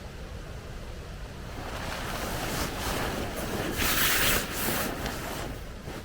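Wind gusting: a rush that swells to its loudest about four seconds in and then dies away, over a steady low rumble of wind on the microphone.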